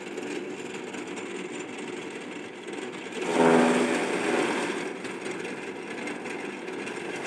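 Electric chaff cutter running steadily, chopping green grass as it is fed into the chute. About three seconds in the sound swells louder for a second or so as a bundle goes through the blades, then settles back.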